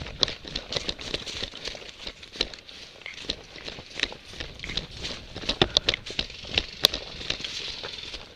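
Irregular crunching and rustling of footsteps moving quickly through dry leaves and brush, with many quick, uneven clicks.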